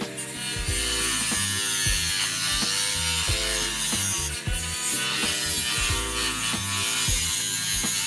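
Handheld rotary tool with a thin cutting disc running and cutting through the USB-C connector of a braided charging cable: a steady high whine with a gritty hiss from the cut. Background music with a beat underneath.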